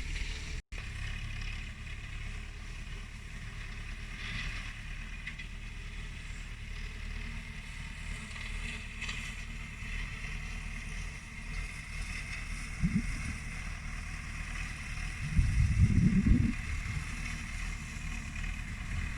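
Tractor engine running steadily while mowing hay, heard from aboard the tractor. A louder low rumble swells for about a second near the end.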